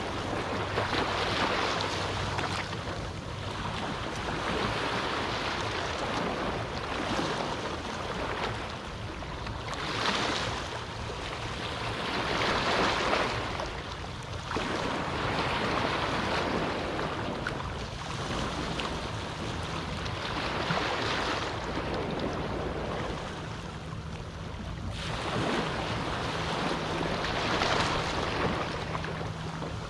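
Small Caribbean waves on a calm sea, breaking and washing up the beach in repeated surges that swell and fade every few seconds. A faint steady low hum sits underneath.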